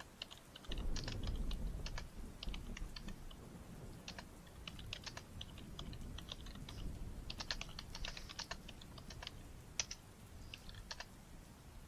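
Typing on a computer keyboard: irregular keystroke clicks in quick runs with short pauses. Under it, a low rumble starts suddenly about a second in and fades away over several seconds.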